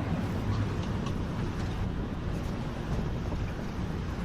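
Strong storm wind blowing, a steady rushing noise with wind buffeting the microphone.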